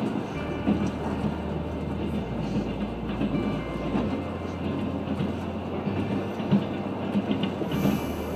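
Passenger train of the Trans-Siberian Railway running along the track, heard from inside the carriage: a steady rumble of wheels on rails with a few short knocks.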